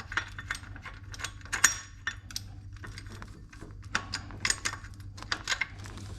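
Hand tools and metal parts clinking and tapping irregularly while a part is worked loose and removed from the engine, over a steady low hum.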